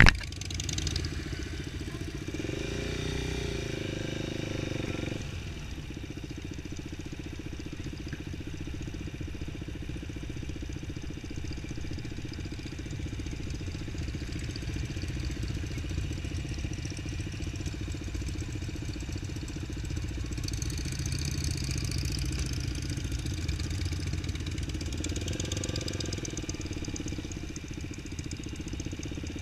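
Motorcycle engines running steadily at low road speed, the camera bike's own engine close by with other motorcycles in the group around it. The sound swells briefly twice, a little after the start and again later on.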